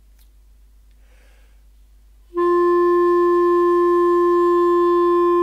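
Clarinet playing one long, steady note that begins about two seconds in, started without the tongue on breath and embouchure support alone, and held level without wavering.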